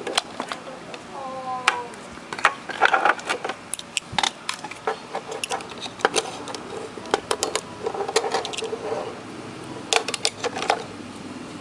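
Irregular clicks, taps and plastic rattles as a handheld wireless microphone is handled and a battery is fitted into its plastic battery holder.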